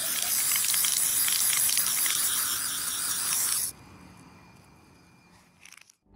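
Aerosol spray-paint can hissing in one continuous spray, which stops abruptly after about three and a half seconds.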